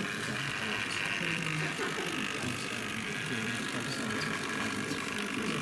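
Background chatter of people in a hall, over a steady high hum.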